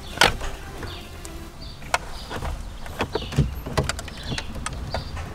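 Plastic wiring-harness connectors and cables being handled and pushed into the back of an Android car head unit: a string of irregular small clicks and rattles, the sharpest near the start.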